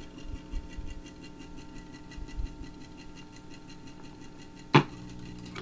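RCA Victor 45-EY record changer between records: steady amplifier hum with faint mechanical ticking. About five seconds in comes a single sharp, loud pop, which the owner puts down to a dirty muting switch.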